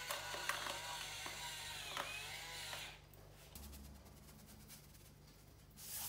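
Hand pepper mill grinding peppercorns for about three seconds, a dry rasping crunch. Near the end comes a short hiss as salt is poured from a canister.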